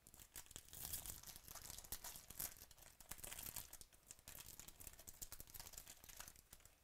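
Faint crinkling and tearing of a foil trading-card pack wrapper as it is ripped open and peeled off a stack of cards, a steady run of small crackles.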